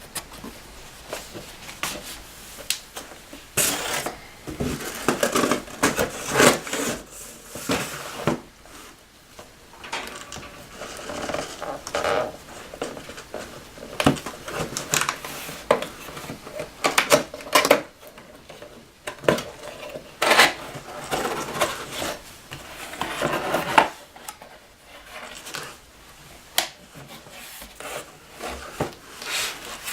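A mechanical keyboard and its packaging being handled during unpacking: irregular clicks, clacks and knocks of plastic, mixed with rustling of wrapping, coming in bursts with short quieter pauses.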